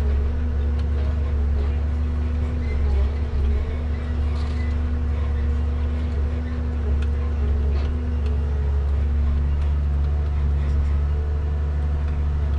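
Komatsu 875 forwarder's diesel engine and crane hydraulics running steadily, heard from inside the cab as the grapple works the log pile; a lower tone joins about nine and a half seconds in.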